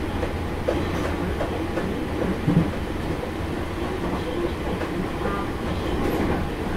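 Interior running noise of a Nankai 9000 series electric train at speed: a steady rumble with the wheels clicking over the rail joints, and one louder knock about two and a half seconds in.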